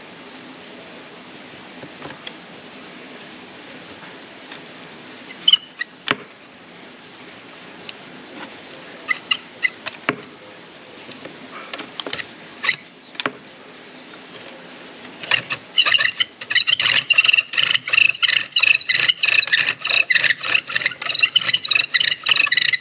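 Bow drill at work: a cedar spindle spinning back and forth under a fatwood bearing block. A few scattered creaks and clicks come first. About two-thirds of the way in, loud rapid squeaking and screeching starts with every bow stroke, several a second, which the user blames on the spindle dragging in the bearing block.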